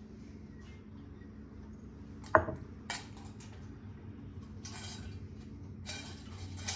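Kitchen utensil and pot sounds as ingredients go into a Dutch oven: one sharp knock against the pot a little over two seconds in, then short bursts of scraping and rustling. A steady low hum runs underneath.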